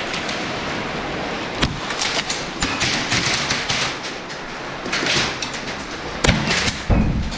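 Scattered sharp knocks and thumps over a steady wash of noise in a large indoor airsoft arena. The loudest are two heavier thumps near the end.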